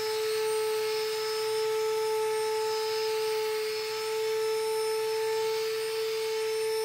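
Ryobi electric detail sander running steadily while sanding a plywood board, a constant motor hum over the hiss of sandpaper on the wood.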